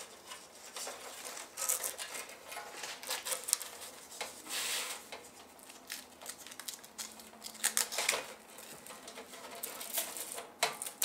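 Handling noises as a strap is fitted: irregular rustles with light clicks and taps, and a longer rustle about four and a half seconds in.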